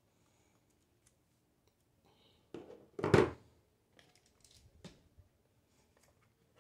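Handling sounds of hard plastic items on a crowded shelf: two knocks as something is set down about two and a half and three seconds in, the second the loudest, then lighter clicks and rattles as things are shifted about.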